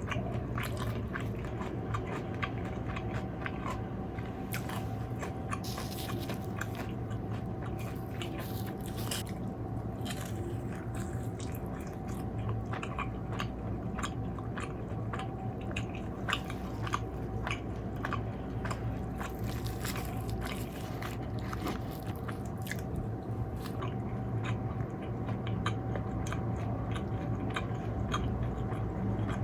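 Close-miked biting and chewing of crispy fried food, with many sharp crunches throughout, over a steady background hum.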